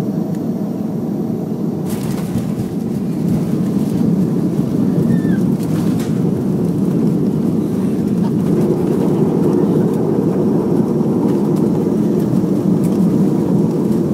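Steady low rumble of a Boeing 737-300 on the ground just after landing, heard from inside the passenger cabin: its CFM56-3 jet engines and the airframe, growing somewhat louder about three seconds in.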